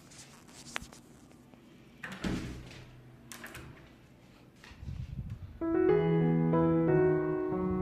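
A few faint rustles and a soft thump, then solo piano music starts about two-thirds of the way through and carries on steadily.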